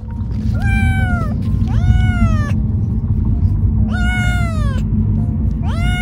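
Ragdoll kitten meowing four times, each meow rising then falling in pitch, wanting to be let out of its carrier. A steady low car rumble runs underneath.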